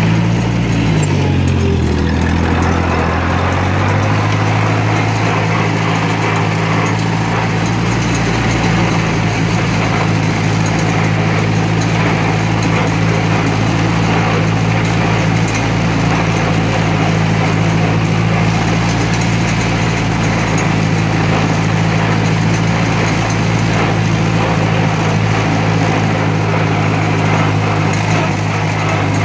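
1958 Cockshutt 540's four-cylinder flathead engine running under way. Its pitch dips and wavers during the first few seconds, then holds steady.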